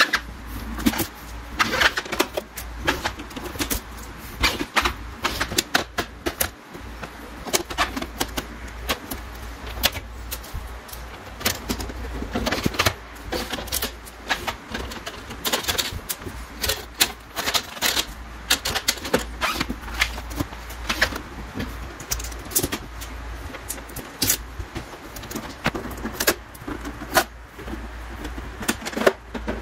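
Blue transit tape being peeled off a new plastic inkjet printer, with irregular clicks and rattles as its plastic paper tray and scanner lid are handled and opened.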